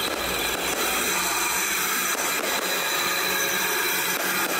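Fireworks display: a steady, dense hiss and crackle, with a few faint pops scattered through it.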